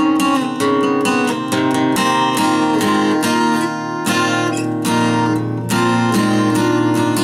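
Acoustic guitar strummed in a steady rhythm of quick strokes, the chords changing every second or two.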